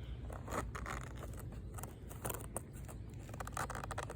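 Irregular scraping and clicking of a package being worked open by hand.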